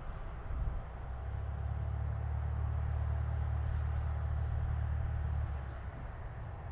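Cessna 172R Skyhawk's four-cylinder Lycoming engine and propeller running as the light aircraft rolls along the runway: a steady low drone that swells about a second in and eases off a little after five seconds.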